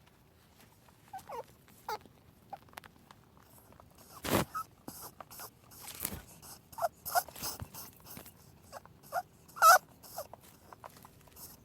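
An animal's short, high squeaks falling in pitch, mixed with clicks and a couple of loud snort-like blows.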